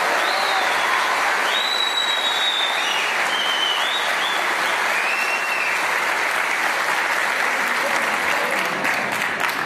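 A large audience applauding in dense, continuous clapping, with a few high sliding whistle-like tones over it in the first half. The clapping thins out near the end.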